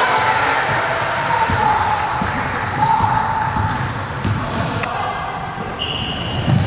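Indoor basketball game: a ball bouncing on the court over a continuous hubbub of players' and spectators' voices in a large gym, with a brief high squeak or whistle about six seconds in.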